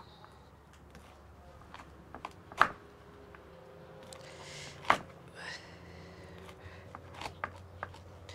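Kitchen knife chopping a corn cob into rounds on a wooden cutting board: two loud knocks a little over two seconds apart, with lighter taps and cutting sounds between them.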